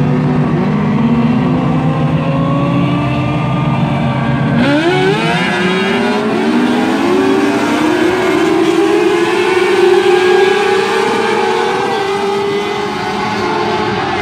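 Engines of cars running on a dirt track, several at once. About four and a half seconds in, one engine revs up sharply and then holds high revs, climbing slowly in pitch as the car runs on.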